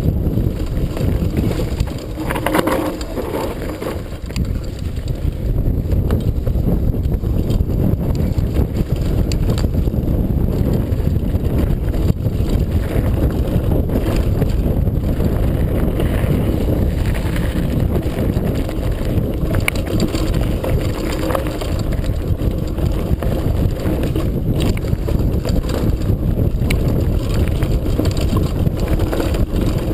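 Wind buffeting the microphone of a downhill mountain bike run, over the steady sound of tyres on a dirt and gravel trail, with scattered sharp clicks and knocks from the bike rattling over bumps.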